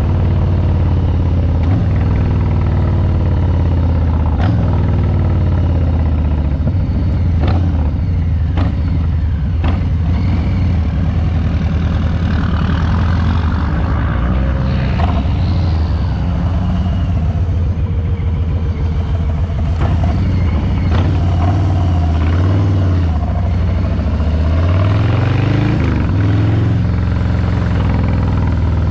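Harley-Davidson Street Bob 114's Milwaukee-Eight 114 V-twin running through its exhaust while riding. The engine note drops and then climbs again about three-quarters of the way through, as the bike slows and accelerates.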